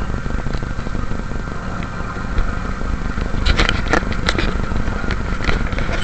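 Off-road show vehicle's engine running as it drives across a sandy track, heard from on board as a steady low rumble. A cluster of sharp knocks and rattles comes about three and a half to four and a half seconds in, with a few more near the end.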